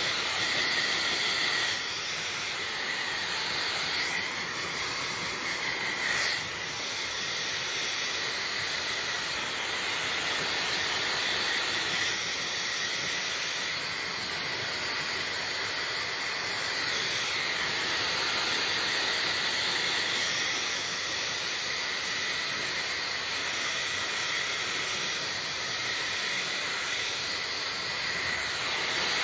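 Hair dryer running on a medium setting: a steady rush of blown air with a constant whine, its level swelling and dipping slightly.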